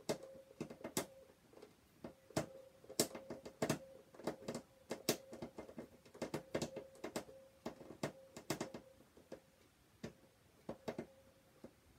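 Handheld screwdriver working at a stuck screw that won't come out: a long run of irregular sharp clicks, with a faint steady hum under most of them that stops about nine seconds in.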